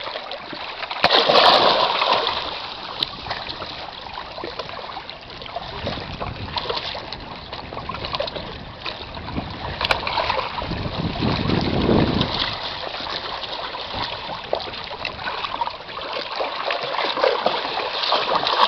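Water splashing and sloshing as a golden retriever swims and wades through shallow water, loudest about a second and a half in.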